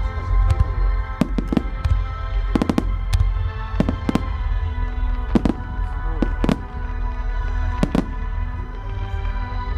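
Aerial firework shells bursting in the sky, about a dozen sharp bangs and crackles, often two at a time, with a steady deep rumble underneath. Music with long held notes plays throughout.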